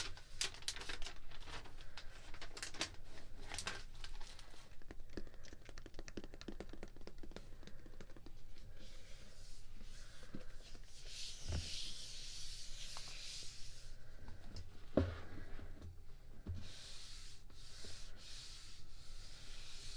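Close-miked ASMR handling sounds: a quick run of light taps and clicks over the first few seconds, then soft rubbing hiss with a few isolated knocks.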